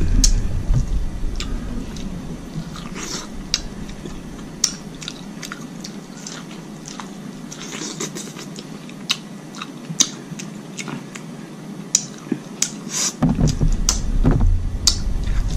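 Close-miked eating of seafood boil shellfish by hand: chewing and wet mouth sounds, with irregular sharp clicks and smacks as the sauce-covered pieces are bitten and sucked.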